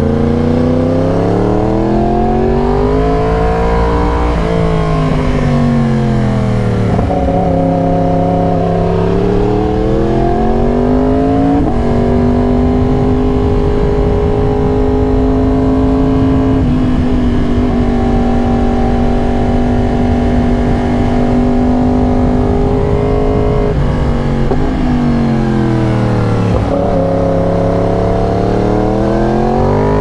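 A 2022 Yamaha R1's crossplane inline-four running through a raw SC-Project exhaust while ridden, its revs rising and falling. The revs climb over the first few seconds, dip and climb again, hold fairly steady through the middle, then fall and rise once more near the end.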